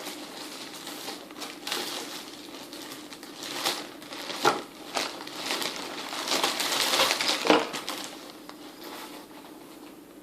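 Packaging rustling and crinkling as items are handled and unwrapped, with a few sharp clicks and knocks, busiest a little past the middle.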